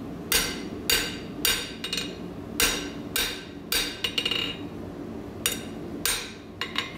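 Cross peen hammer's flat face striking a hot half-inch square steel bar on the anvil face, drawing out a taper. About a dozen even blows come roughly twice a second, each with a metallic ring, and there is a short pause a little past halfway.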